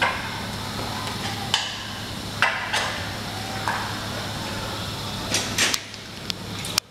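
Scattered sharp metallic knocks and clicks from hands working on the aluminium header track of a DORMA automatic sliding door, with a cluster of quicker clicks near the end, over a steady low hum.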